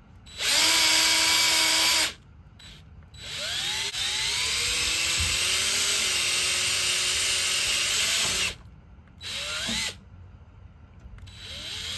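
DeWalt 20V MAX cordless drill boring a set-screw hole in the mount of an RV screen-door cross bar, run in several pulls of the trigger. A short burst comes first, then a long run that winds up in pitch and holds steady for about five seconds, a brief blip, and a last run winding up near the end.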